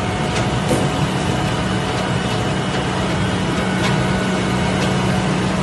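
Heavy vehicle engine running steadily with an even, low drone, plus a few faint clicks.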